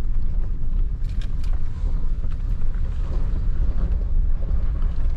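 Inside the cab of a Toyota Tundra pickup driving slowly on a gravel forest road: a steady low rumble of engine and tyres, with a few light clicks.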